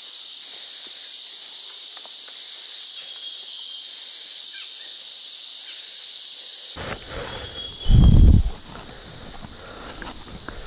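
Steady, high-pitched chorus of insects, without pauses. About seven seconds in, the chorus suddenly turns louder and pulsing, a low rumble joins it, and a heavy low thump comes about a second later.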